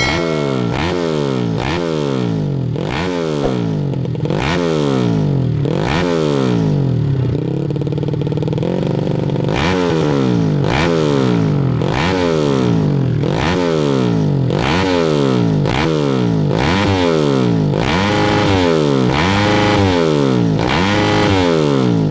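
Yamaha Jupiter Z single-cylinder four-stroke motorcycle engine in grasstrack trim, revved in quick blips about once a second, each rising sharply and dropping back. Near the middle it holds one longer rev for about two seconds.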